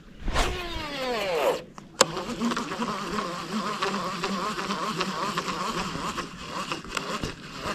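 Baitcasting reel during a cast and retrieve: the spool whines as line pays out, the whine falling in pitch as the spool slows. A sharp click about two seconds in, then a steady buzzing whir as the handle is cranked to reel the lure back.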